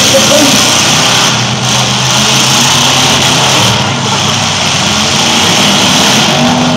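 Demolition derby pickup trucks' engines running and revving together, a loud, steady engine noise with no single crash standing out.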